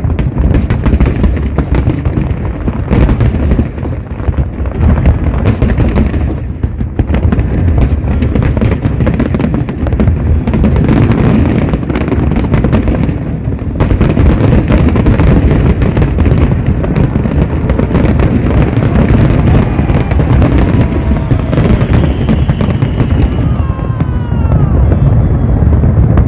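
Harbour fireworks display: a dense, continuous barrage of loud bangs and crackles, with a few short whistling glides near the end.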